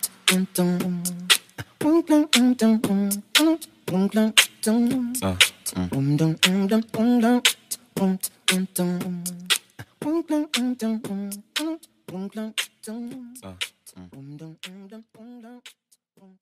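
Background music: a song with a sung or hummed vocal line over sharp, rapid percussive clicks, fading out near the end.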